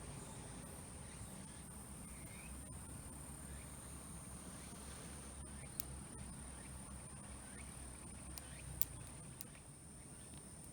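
Small wood fire burning in a compact fire-pit stove, faint and steady, with two sharp pops about three seconds apart.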